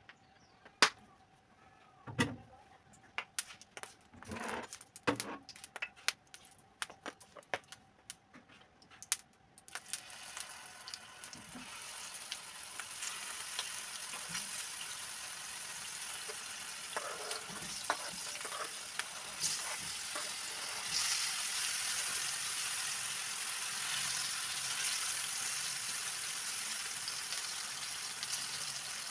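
Plantain slices frying in hot oil in a nonstick pan. A few scattered sharp clicks and pops come first, then a sizzle starts about ten seconds in and grows louder as more slices go into the oil. A fork stirs the slices near the end.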